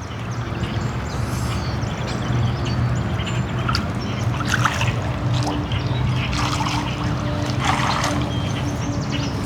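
A steady low mechanical hum with a constant tone, building over the first couple of seconds, over a rushing water noise. Canada geese give a few short calls around the middle and near the end.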